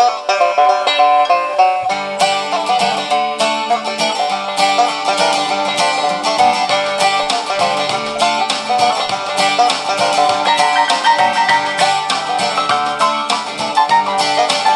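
Upbeat banjo-led country instrumental playing through the small built-in speaker of an XHDATA D-368 portable radio, as a speaker audio demo; a lower, fuller part joins about two seconds in.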